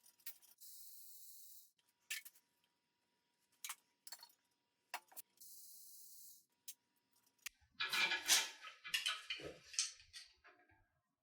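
Hand tools clicking and clinking on metal engine parts, with scattered single clicks and then a busier burst of metallic rattling and clinking about eight seconds in.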